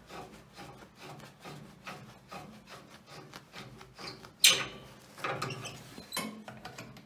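Hands unscrewing a fitting at an SCBA air cylinder's valve inside a compressor fill station, then handling the yellow fill hose: rubbing and scraping with many small clicks, and one sharp knock about four and a half seconds in.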